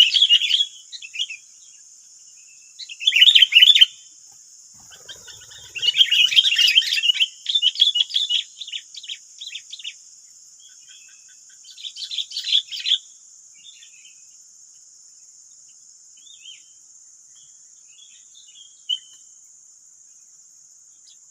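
Sooty-headed bulbuls chattering and calling in several bursts, the longest lasting a few seconds, then fading to a few scattered chips. A steady high insect drone runs underneath.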